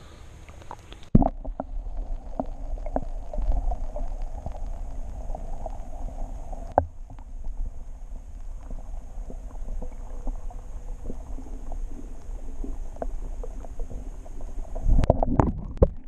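Muffled underwater sound through a submerged action camera's microphone: a splash about a second in as the camera goes under, then a dull low rumble with faint scattered ticks. Louder splashing comes near the end as it breaks the surface.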